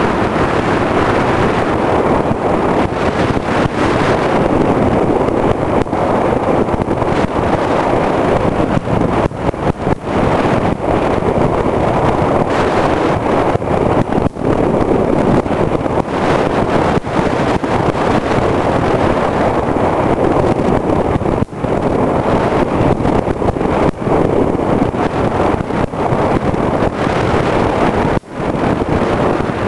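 Steady rush of wind on a scooter-mounted camera's microphone at riding speed, with the Suzuki Skywave 250 Type M's single-cylinder four-stroke engine running underneath. The level dips briefly a few times.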